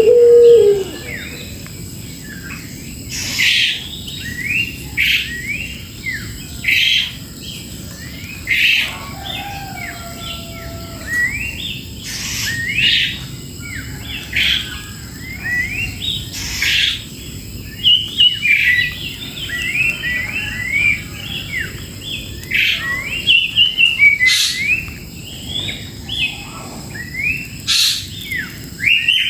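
Birds chirping in quick, overlapping notes, broken every second or two by louder, sharp piercing calls. Going by the video, the birds include a cucak jenggot (grey-cheeked bulbul).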